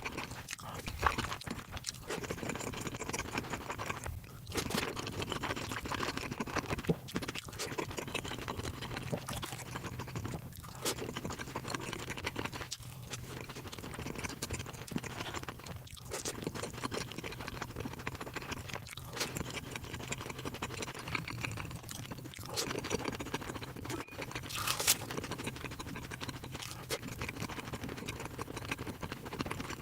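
A person chewing crunchy fried food close to the microphone, with a steady crackle of bites and crunches broken by short pauses every few seconds.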